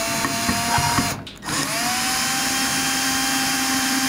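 Electric drill turning a point tap to cut threads in a drilled hole, a steady motor whine. The whine cuts out for about half a second just after a second in, then starts again at a slightly higher pitch and runs steadily.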